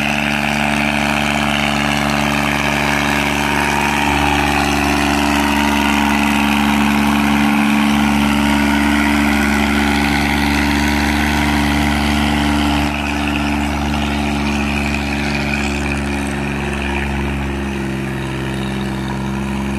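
Mahindra 265 DI tractor's three-cylinder diesel engine running steadily under load as it pulls a harrow through tilled soil, a little quieter in the second half.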